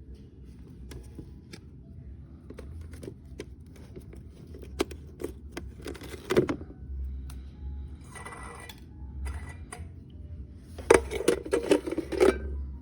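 Things being handled: scattered light clicks and knocks, a brief rustle about eight seconds in, and a cluster of louder clattering knocks near the end.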